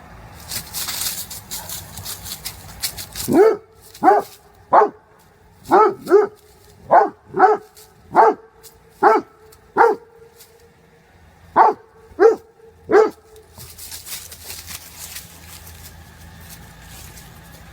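A dog barking, about thirteen short barks in a row with a brief pause near the middle.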